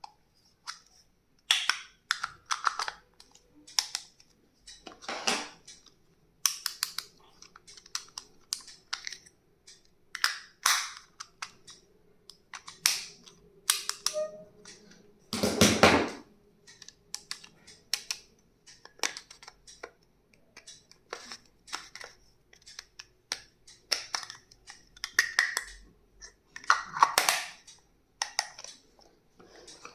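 Stationery and its packaging being handled on a tabletop: irregular clicks, taps and rustles, with a longer, louder rustle about halfway through.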